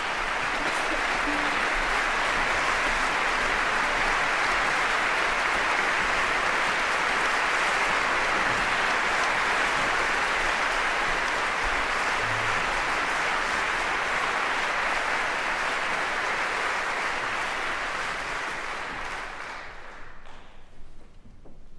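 Concert-hall audience applauding steadily as the piano soloist takes a bow, fading away near the end.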